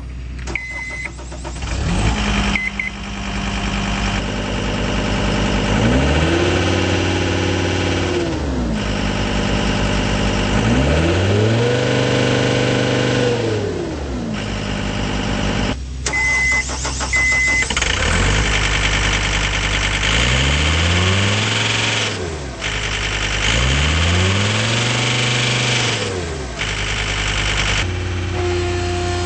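John Deere 326D skid steer's diesel engine starting up, then running with the throttle raised and lowered four times, its pitch rising and falling each time. Short electronic beeps sound about a second in, near three seconds, and twice more midway.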